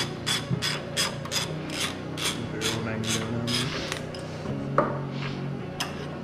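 A hand ratchet being swung back and forth, about three strokes a second, each stroke a short rasping burst of pawl clicks as a small bolt is backed out. The strokes stop about four seconds in, and two single strokes follow.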